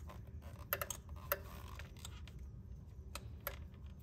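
A few light, sharp plastic clicks and ticks from a wiring connector being handled and fitted by hand, over a faint low hum.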